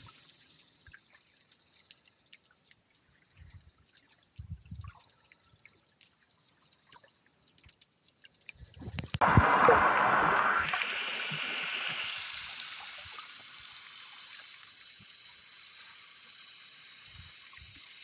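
Underwater camera sound: a quiet hiss with a few faint low knocks, then about nine seconds in a loud gurgling rush of air bubbles that fades slowly into a fizzing hiss.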